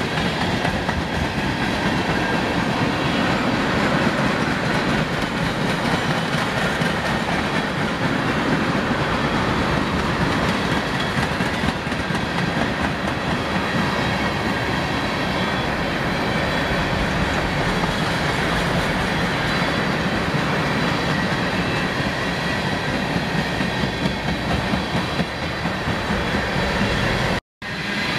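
Freight train tank cars rolling past, steel wheels clicking over the rail joints in a steady clickety-clack. The sound cuts out for a moment near the end.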